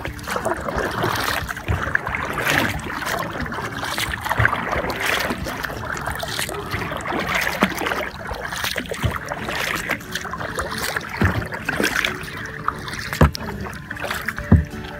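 Kayak paddles dipping and splashing with each stroke, a repeated rhythm over water rushing along the hull.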